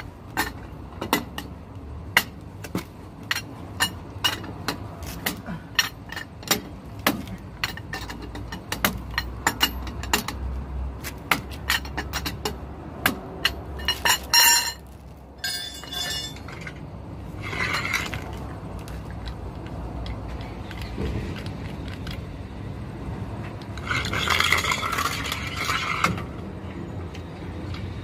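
Metallic clicks and clinks about twice a second as a long steel bar is worked at the jack under the truck's rear. About halfway through the rhythm stops, and a few louder, irregular clanks follow, with a short rattling scrape near the end.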